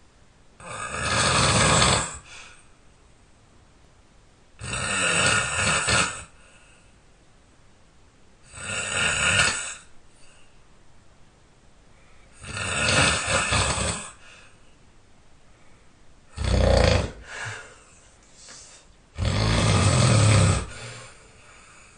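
A person snoring loudly in a steady rhythm: six snores about four seconds apart, each lasting around a second and a half. The fifth is shorter and is followed by a smaller catch.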